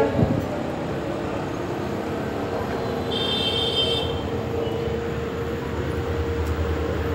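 Twin WDG4 diesel locomotives approaching: a steady engine drone with one constant tone, and a low rumble that grows near the end. A brief high-pitched tone sounds about three seconds in.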